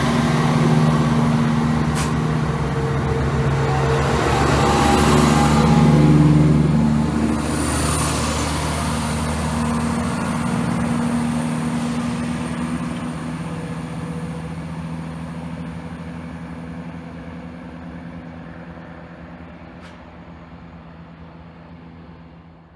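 A train passing with a steady engine note, loudest about six seconds in, then fading away steadily as it recedes.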